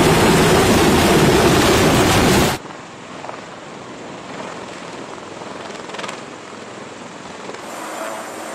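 Loud rotor wash and turbine noise of a Sikorsky UH-60 Black Hawk helicopter lifting off close by. After about two and a half seconds it cuts off abruptly to a much quieter, steady hum of hovering rotorcraft heard from farther away.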